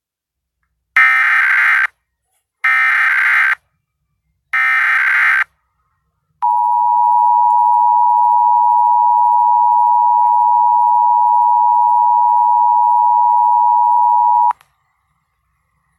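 Emergency Alert System Required Monthly Test tones broadcast on TV. First come three short buzzing bursts of SAME header data, then the steady two-tone attention signal for about eight seconds, which cuts off sharply. Together they announce a statewide required monthly test.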